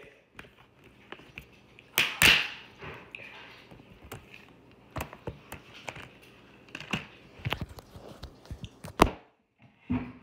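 Handling noise: scattered clicks, taps and light knocks of things being handled close to the microphone, with a louder rustle about two seconds in and a sharp click near the end.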